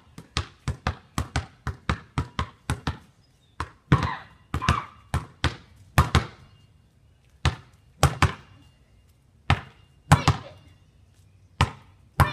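Basketball bouncing on a concrete driveway: a fast run of bounces for about the first three seconds, then bounces spaced further apart, some in quick pairs.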